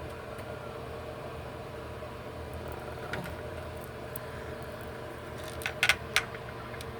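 A steady low electrical or fan-like room hum, with a few sharp clicks and taps near the end.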